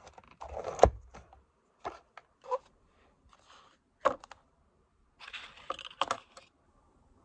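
Things being handled on a desk: a rustle and a sharp thud about a second in, then scattered taps and clicks, and another rustle with a couple of knocks near the end as a large textbook is picked up and opened.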